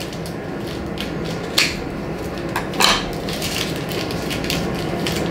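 Parchment paper crinkling as it is folded and snipped with scissors, with two sharper crackles about a second and a half and three seconds in.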